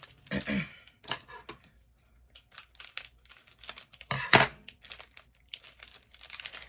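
Plastic candy packaging being torn open and crinkled, with irregular crackles and one louder rip about four seconds in.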